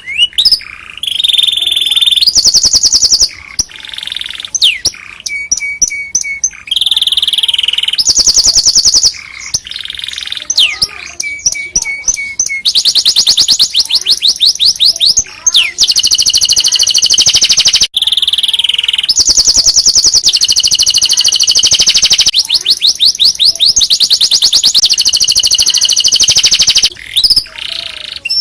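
Domestic canary singing a long, unbroken song of rapid trills: runs of fast repeated high notes, switching to a new phrase every second or two.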